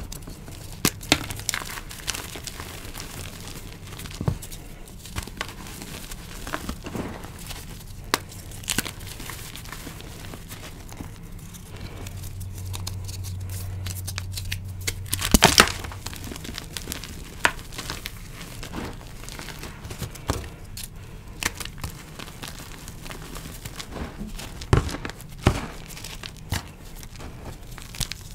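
Hands crushing and crumbling dyed gym chalk blocks and reforms: irregular soft crunches and crackles as the chalk breaks into powder, with a louder crunch about halfway through.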